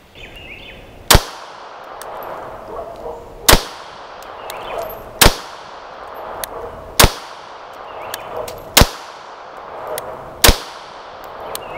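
Honor Guard Long Slide 9mm pistol fired slowly, six single shots about two seconds apart, each shot trailing off in a short echo.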